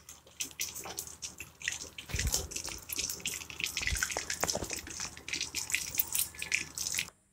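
Chicken pakoras deep-frying in hot oil in a kadai, sizzling and crackling with dense small pops as a wire strainer scoops them out. A couple of low knocks come about two and four seconds in.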